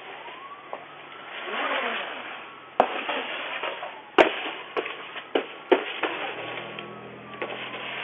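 Street traffic hissing past on a wet road, heard through a doorbell camera's microphone, with about six sharp knocks and clicks in the middle seconds, the loudest about four seconds in.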